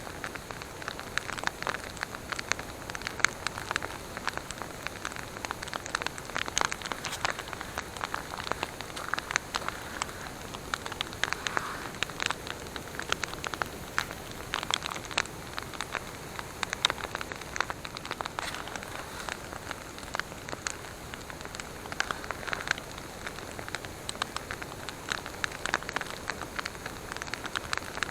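Wood campfire burning steadily, with a dense run of crackles and sharp pops over a soft hiss.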